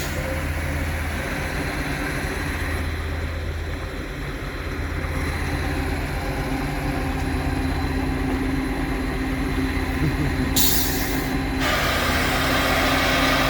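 Semi truck's diesel engine running steadily, with a short burst of air-brake hiss about ten and a half seconds in, then a louder steady hiss of air from about a second later to the end.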